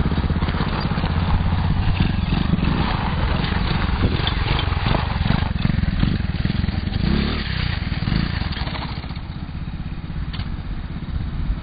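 A custom RC truck's 110cc engine running steadily, getting quieter after about eight seconds.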